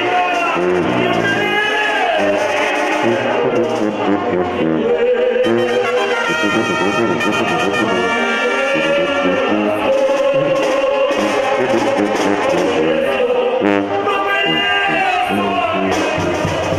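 Live Mexican banda music: a brass section of trumpets and trombones playing over drums, with men singing into microphones in long held notes.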